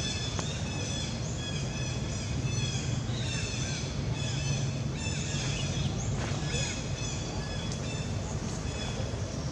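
Birds calling over and over, short rising-and-falling calls about twice a second, over a steady low rumble.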